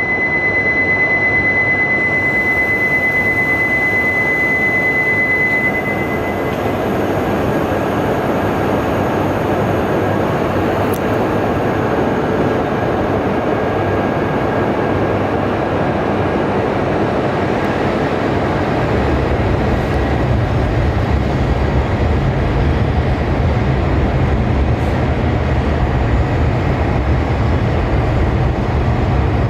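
Shinkansen bullet train moving along the platform, a steady loud rush of wheels and air. A single steady high tone sounds over it for the first six seconds or so, and a deeper rumble builds in from about two-thirds of the way through.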